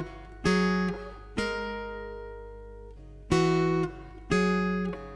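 Background acoustic guitar music: four slow chords, each struck sharply and left to ring out and fade.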